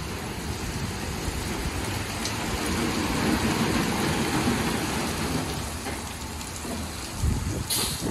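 Ryko Select-A-Wash rollover car wash at work: red cloth wrap-around brushes spin and flap against a pickup truck amid water spray and machine running noise. A brief hissing burst and choppier thumping come near the end.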